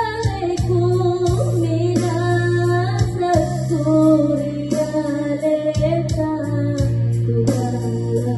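A girl singing a slow, melodic song into a handheld microphone over an instrumental backing track with plucked guitar and a steady low bass.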